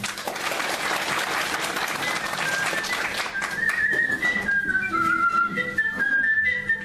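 A small audience applauding, the clapping fading over the first four seconds. About two and a half seconds in, a high single-line tune moving in stepped notes comes in and keeps going.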